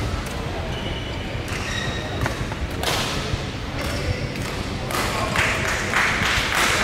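Badminton hall background noise: people talking, short high squeaks of shoes on the court mats and a few dull thuds, with a louder rush of noise from about three seconds in.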